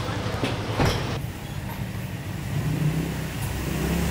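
Street traffic: a motor vehicle engine running close by as a low rumble, with one sharp knock just before a second in and the engine hum growing stronger in the second half.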